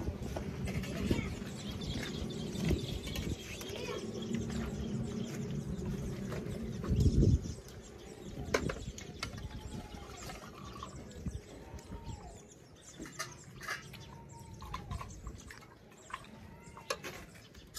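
A bird calling again and again in short arching notes, with light clinks of steel plates and a spoon. The first half is busier, with low handling noise and a loud bump about seven seconds in.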